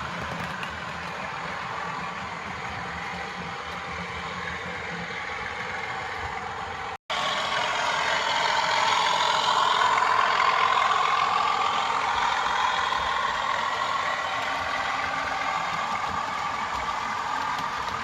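OO-gauge Bachmann Class 37 model diesel locomotive running, its Hornby TTS sound decoder playing the diesel engine sound through a small speaker. The sound is steady, cuts out for an instant about seven seconds in, then comes back louder and swells for a few seconds before easing.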